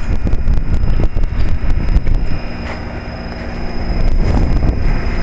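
1998 Trane XL1800 heat pump's outdoor unit running in cooling mode: the condenser fan and reciprocating compressor hum steadily, thought to be at part capacity, about 2.5 tons. A heavy rumble of wind on the microphone covers the first two and a half seconds, after which the low steady hum comes through clearly.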